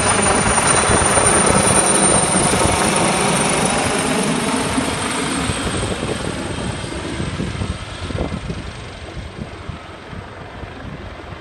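Air ambulance helicopter climbing away after take-off: a steady noise of rotor and turbine engines that is loud at first and fades gradually as it moves off.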